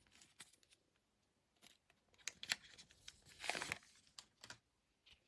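Faint rustling and crinkling of trading cards and their foil pack wrapper being handled, in short scattered bursts, busiest about three and a half seconds in.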